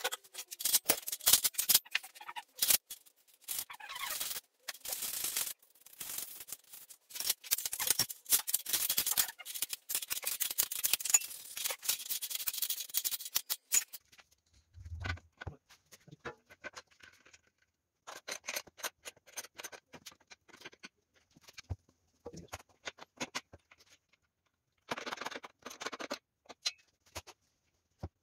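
Dense, irregular metallic clicking and scraping of hand work on steel suspension and steering parts, then sparser clicks and rattles after about 14 s, with one dull thump about 15 s in.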